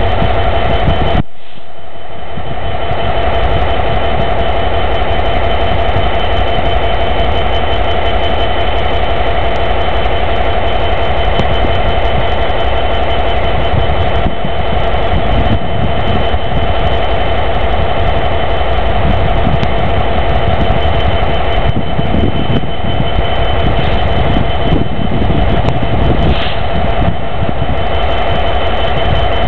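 British Rail Class 66 diesel locomotive's EMD two-stroke V12 engine running at idle while standing, a steady low rumble with a steady whine over it.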